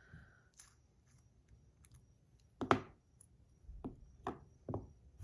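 A few sharp metallic clicks and taps from handling a metal fidget spinner fitted with deep-dish buttons: one louder click with a brief ring about two and a half seconds in, then three lighter clicks about half a second apart near the end.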